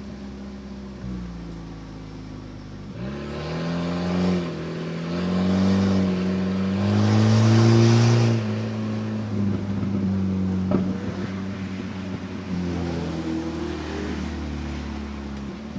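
Car engine accelerating and revving: it picks up about three seconds in, rises and falls in pitch, is loudest around eight seconds, then runs on more steadily.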